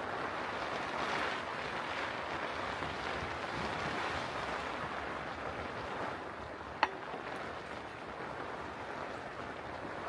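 Strong wind rushing steadily against a cotton bell tent, swelling and easing slightly. One sharp click cuts through it about two-thirds of the way in.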